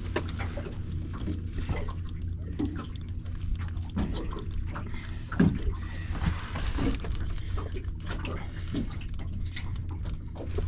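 Water lapping and sloshing against a small boat's hull over a steady low rumble, with short knocks and scrapes as a blue swimmer crab is handled against a plastic crab gauge; one knock about halfway through is the loudest.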